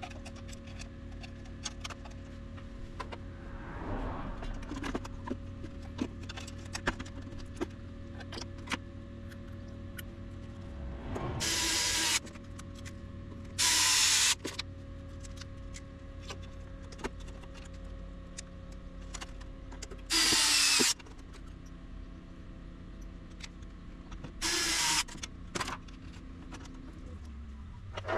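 Small clicks and handling noises over a steady electrical hum, broken by four short, loud whirring bursts of a small motorized tool.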